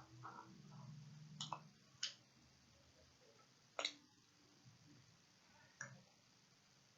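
Near silence broken by a few faint, sharp clicks and taps, about four spread over several seconds, from small plastic dip powder jars being handled.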